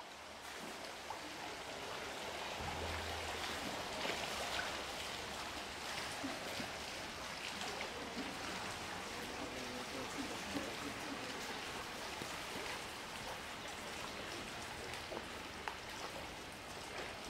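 Water running and trickling steadily in a zoo polar bear pool, with light drips and splashes.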